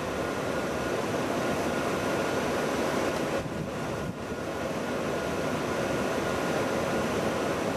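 Steady rushing outdoor background noise with a faint high whine running under it, easing briefly about three and a half seconds in.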